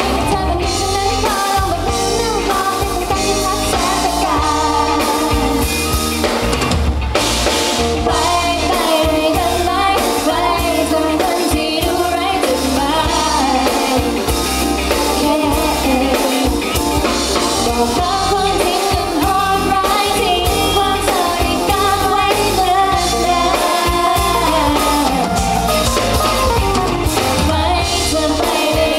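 Live pop band performance: a woman sings lead over a drum kit, electric guitar and bass guitar.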